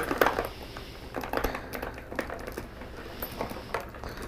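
Brass rifle cartridge cases and crushed-walnut tumbling media poured from a vibratory tumbler bowl into a plastic colander: a burst of clinking and rattling metal at the start, then scattered clinks as the cases slide in.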